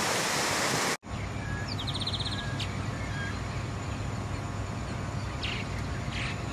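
Muddy floodwater thundering down a swollen waterfall for about the first second, cut off abruptly. Then quieter open air with a low steady rumble, a bird's rapid trill about two seconds in, and a few short chirps.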